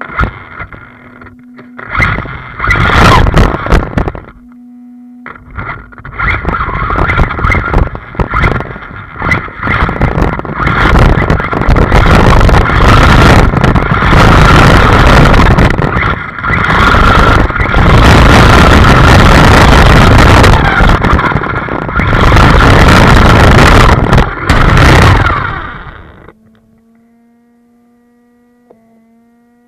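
Arrma Talion RC truggy driving hard over rough dirt, heard from a camera mounted on the car: loud stretches of tyre, dirt and wind rush with a faint steady whine from its brushless motor, broken by short pauses. The driving noise cuts off about 26 seconds in, leaving a quiet steady low hum.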